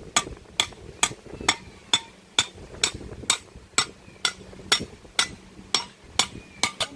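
Steady, evenly paced striking, a little over two blows a second, each a sharp knock with a brief metallic ring.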